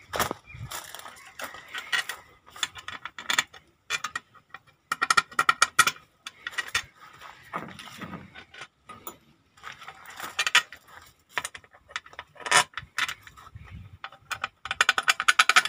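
Hand tools working on metal fittings: several runs of rapid metallic clicking, each about a second long, like a ratchet wrench being worked, with scattered clinks in between.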